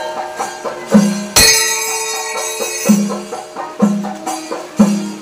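Traditional percussion music: a low drum stroke about once a second over held tones, with a loud ringing metallic crash about a second and a half in.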